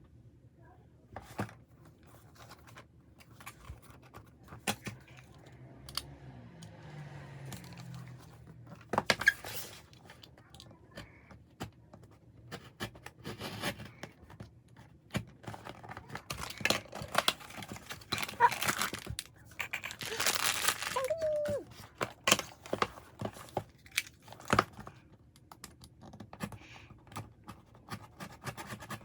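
Plastic packaging of blind-box goods being torn open and crinkled by hand, in irregular rustling bursts with small clicks and taps; the loudest tearing comes about nine seconds in and again around eighteen to twenty-one seconds.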